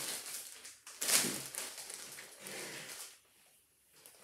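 Clear plastic poly bag with a garment inside crinkling and rustling as it is handled and set down, with the loudest crackle about a second in; the rustling dies away about three seconds in.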